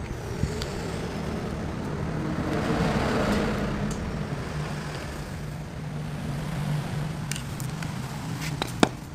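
Motor vehicle engine running with a steady low hum. A broader rush swells and fades about three seconds in, like a vehicle passing, and a few sharp clicks come near the end.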